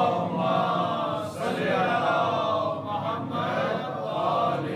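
Voices chanting a devotional recitation in long melodic phrases, with brief breaks about a second in and about three seconds in.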